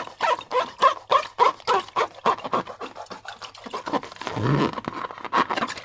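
Slime and transparent balloon rubber being squeezed and worked: a quick run of wet squelches and rubbery squeaks, about three a second, with one longer, lower squelch about four and a half seconds in.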